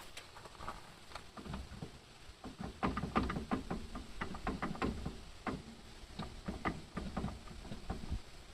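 A rapid, irregular series of sharp clicks and knocks over a low rumble, thickest from about a third of the way in until near the end.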